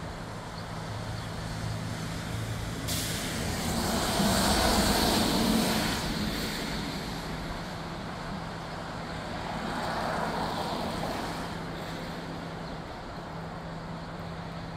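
Outdoor rain-shower ambience: a steady hiss with two louder swells, the larger one a few seconds in and a smaller one around ten seconds. A faint steady hum runs underneath.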